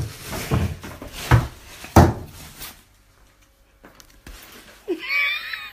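Four dull knocks and thuds in a small room, spread over about two seconds. A short, high, wavering voice-like sound follows near the end.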